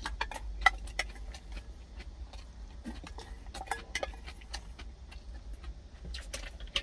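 Wooden chopsticks clicking and scraping against a stainless steel bowl as the last of the rice is scooped out, in quick, irregular clinks, with a steady low hum underneath.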